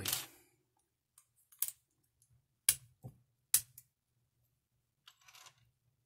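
Small metal lock picks and a padlock being handled and set down on a wooden desk: a few separate sharp clicks and clacks, the two loudest about a second apart near the middle, then a brief rustle near the end.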